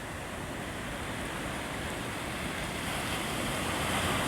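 Ocean surf washing onto the shore, swelling louder toward the end, with some wind on the phone's microphone.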